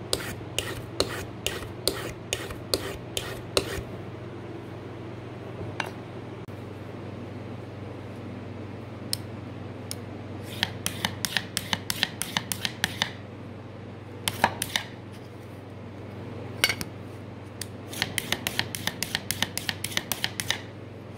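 A hardened steel burnisher stroked hard against a steel cabinet scraper to turn the scraping burr: runs of short metallic scrapes, about three a second at first, then faster runs of about five a second around the middle and near the end.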